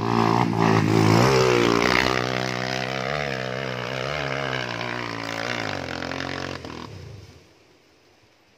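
Dirt bike engine revving hard under load on a steep uphill climb, its pitch wavering up and down as the throttle is worked. It is loudest in the first two seconds, fades as the bike pulls away up the slope, and drops out about seven seconds in.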